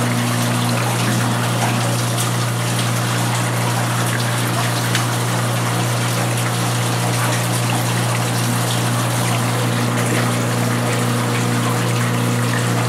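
Laboratory flume's water pump running with a steady low hum, over the even rush and trickle of water flowing through the channel and over the V-notch weir.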